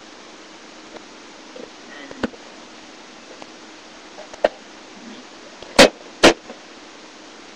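Sharp clicks and knocks from handling a hobby tool box: two light taps, then two loud snaps about half a second apart near the end.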